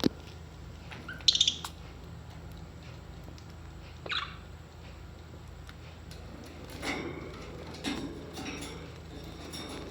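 Birds giving a handful of short squawks and chirps, the loudest about a second in, another falling call about four seconds in, and two more near the end, over a steady low hum.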